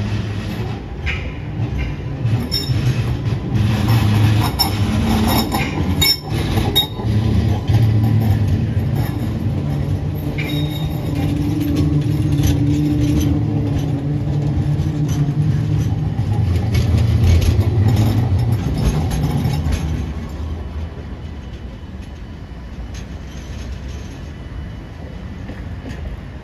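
Electric light rail tram passing close by and pulling away: a steady low rumble of its running gear and motors, with thin high wheel squeals and sharp clicks over the rails in the first several seconds and a steady motor tone in the middle. The sound fades after about twenty seconds as the tram moves off.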